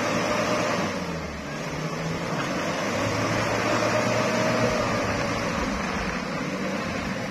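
Mitsubishi L300 pickup's engine running hard under heavy load while the truck is pushed up a slick, muddy slope, its pitch wavering slightly over a steady rushing noise.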